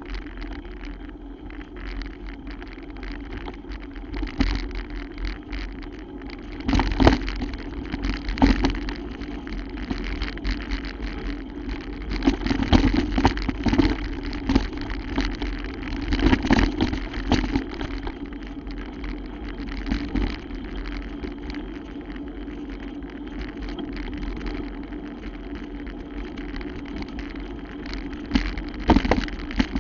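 Bicycle ridden over a rough, wet, muddy trail: steady tyre and riding noise with a low rumble, broken by irregular knocks and rattles from bumps, in louder stretches about a quarter of the way in, around the middle, and near the end.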